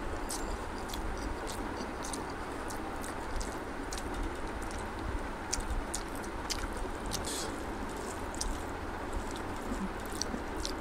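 Close-up eating sounds: fingers squishing and mixing basmati rice with egg curry on a banana leaf, and wet chewing, heard as many short sticky clicks over a steady hiss.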